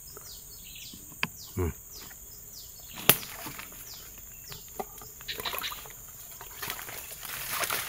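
Steady high buzz of forest insects, broken by a sharp snap about three seconds in and a few lighter clicks. Near the end comes rustling and light splashing as a hand works in a shallow swamp pool.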